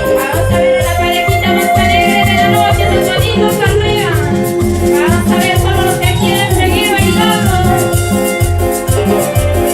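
Loud Latin American dance music played live, with a steady thumping bass beat, quick shaker-like percussion ticks and a sliding melody line above.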